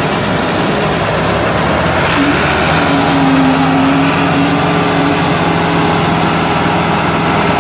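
Two Massey Ferguson diesel tractor engines, a 385 and a 360, running hard under heavy load as they pull against each other in a tug-of-war. The sound is loud and steady, and a steady droning note sets in about two seconds in.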